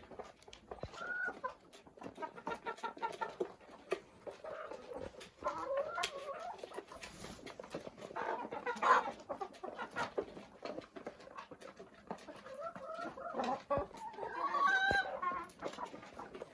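Domestic chickens clucking and calling in a coop, short scattered calls with a few louder ones, amid many small clicks and scratches.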